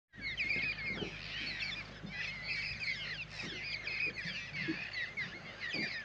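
A large flock of parrots calling and chattering together at dusk, many short shrill calls overlapping without a break, over a faint low hum.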